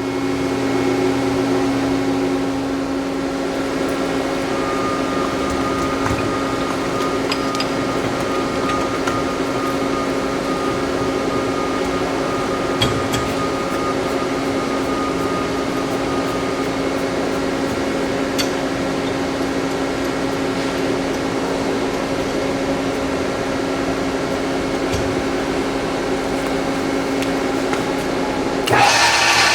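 Electric woodworking machinery running steadily at speed: a constant hum with a fan-like whir. Near the end the sound suddenly gets louder and brighter.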